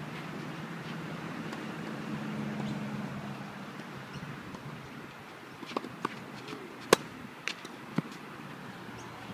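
Tennis rally: a racquet striking the ball and the ball bouncing, heard as about five sharp pops spread over two seconds a little past halfway, the third the loudest.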